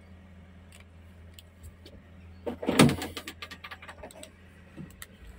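Mini excavator engine running at a steady idle. About halfway through comes a short, loud clatter of cab parts being handled, with a few single clicks before and after it.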